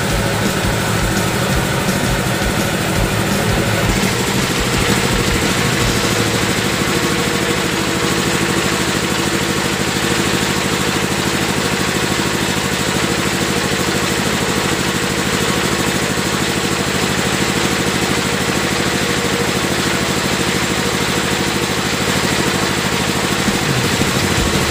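Small engine idling steadily, with a low pulsing for the first few seconds that then evens out.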